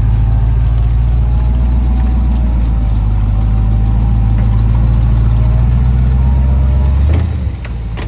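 Off-road vehicle's engine running steadily at a low, even pitch. About seven seconds in it drops away briefly, with a few sharp clicks.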